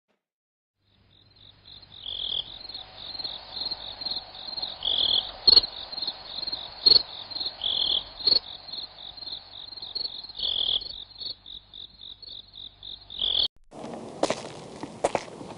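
Solar-powered security alarm sounding a rapid, high-pitched pulsing chirp, with a slightly lower tone swelling every few seconds. It cuts off suddenly near the end, followed by a few clicks and knocks.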